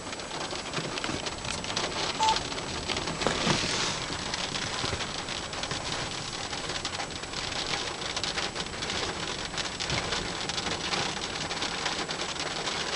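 Steady rain falling, a dense patter of drops, with a couple of slightly louder spatters about two and three and a half seconds in.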